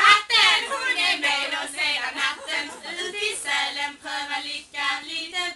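A small group of women singing a song together, with quicker phrases and long held notes.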